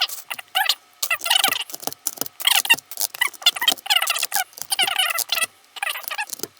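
Keycaps being pulled off a G.Skill mechanical keyboard: quick runs of sharp plastic clicks and clatters in short bursts, with brief pauses between them.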